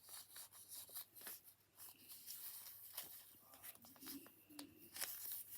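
Faint rustling and creasing of a paper strip being folded over and over, with soft scattered crinkles.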